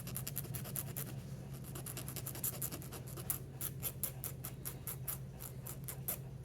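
Rotary nail grinder running with a steady low hum as it files a parrot's toenail in rapid, short scratching strokes.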